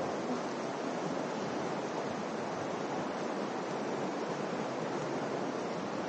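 Steady rush of flowing river water: the Virgin River running through the Narrows.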